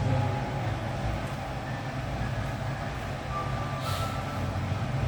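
Steady low hum over background noise, with faint steady tones and a short click about four seconds in.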